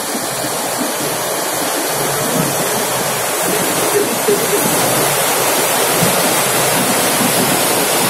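Rushing white water of the Narmada River at the Dhuandhar Falls: a steady, dense rush of falling and churning water, slowly getting louder.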